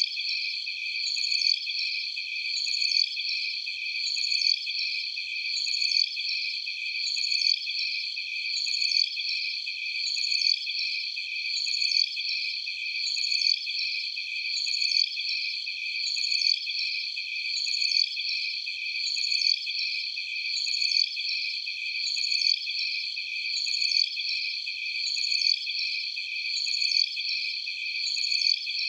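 Night jungle insect chorus ambience: a dense, steady, high trill with a chirping call that repeats about every second and a half.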